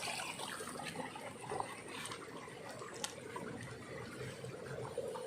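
Fast-flowing water running steadily in a small irrigation ditch, with a faint click about three seconds in.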